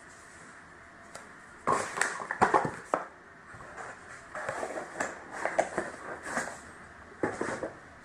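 Things being handled at close range: irregular knocks, clicks and rustles, in two busy spells, the first about two seconds in and the second from about halfway to near the end.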